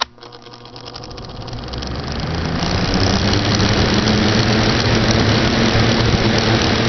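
Mid-1990s Holmes two-speed box fan switched on with a click, its motor hum and the rush of air from the blades building over about three seconds to a steady run.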